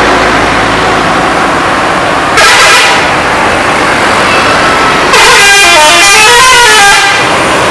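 Tour bus horns: a short blast about two and a half seconds in, then a multi-tone telolet horn playing a tune of stepped notes that rise and fall for about two seconds. Steady background noise runs underneath.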